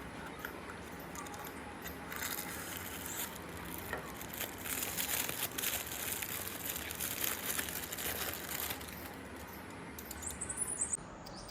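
Toy packaging being handled and opened: faint rustling and crinkling, busiest through the middle.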